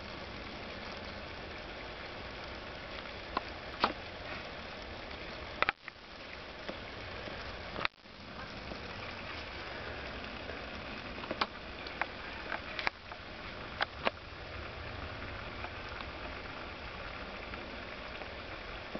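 A steady hiss of outdoor background noise with about nine sharp clicks and taps scattered through it, and two brief dropouts about six and eight seconds in.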